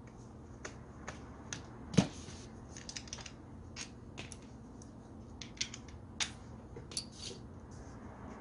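Scattered clicks and knocks of a hand angle grinder being taken apart with a screwdriver: the housing and metal parts tapping and clacking as they are handled, with one sharp knock about two seconds in.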